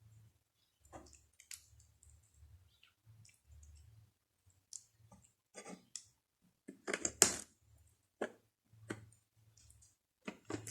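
Close-miked eating sounds: wet mouth clicks and chewing of crumbly dry maize pap (uphuthu) with amasi sour milk, in scattered short bursts, loudest about seven seconds in.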